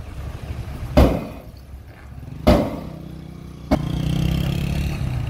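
Two loud metal bangs from a dump truck's steel bed and tailgate as the soil load slides out, about a second and a half apart. Near the end the truck's engine runs steadily.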